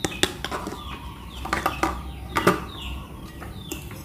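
Metal spoon stirring sugar into mashed banana in a glass bowl, with scattered clinks and scrapes of the spoon against the glass; the loudest clink comes about two and a half seconds in.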